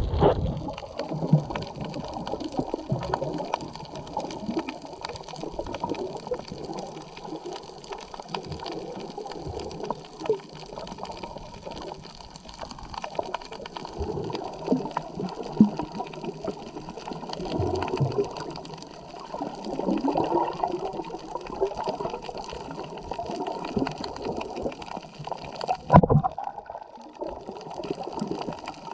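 Muffled underwater sound heard through a submerged GoPro camera: water sloshing and gurgling in uneven swells, with one sharp knock near the end.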